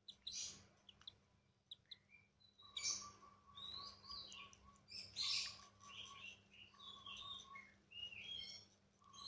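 Lovebird chicks calling in repeated bouts of raspy cheeps and chirps, with a rapid buzzy trill, the begging calls of chicks at feeding.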